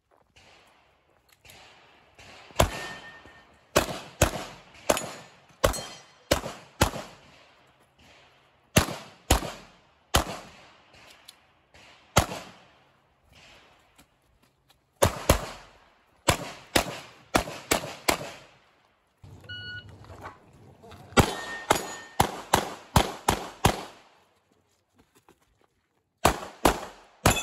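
9mm Glock 48 pistol fired in rapid pairs and strings during a USPSA stage: dozens of sharp shots about half a second apart, broken by pauses of a second or two between groups of targets.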